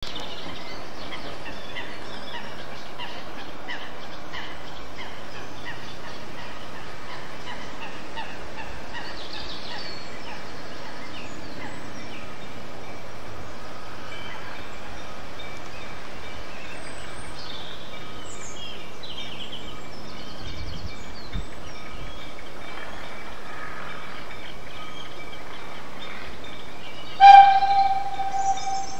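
Birds chirping over a steady background hiss. Near the end a bell is struck once, loudly, and rings on as it fades.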